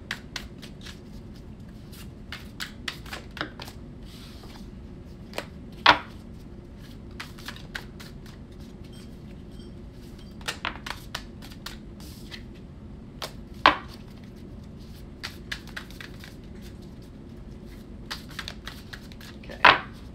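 A tarot deck being shuffled by hand: irregular soft clicks and slaps of cards, with three louder sharp snaps spread through it.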